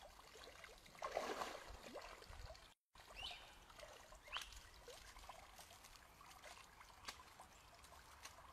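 Faint splashing of water as a dip net is swept through the leaf litter of a shallow pond, the loudest part about a second in, then soft trickling and dripping as the net of wet muck and leaves is lifted and drains. The sound cuts out for a split second near the middle.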